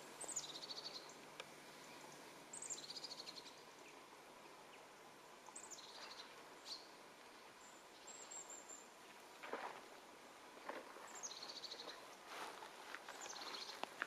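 A small songbird repeating a short song phrase, a high falling note running into a quick trill, five times at intervals of about two to three seconds, with another brief high trill midway. A few soft footsteps on the forest floor come in the second half.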